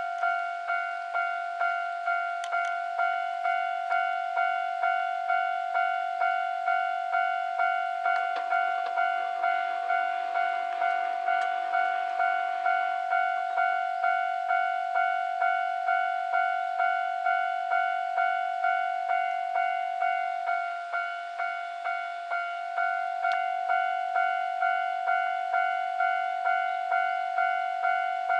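Japanese level-crossing warning bell ringing: a steady, even electronic ding repeating a little under twice a second, the signal that a train is approaching. A broad rush of noise swells and fades midway.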